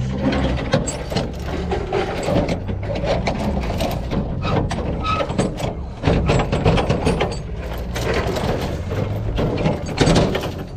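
Steel load-securing chains and their hooks clinking and rattling against each other and a metal rail as they are grabbed and shifted by hand, with frequent sharp clanks, over a steady low hum.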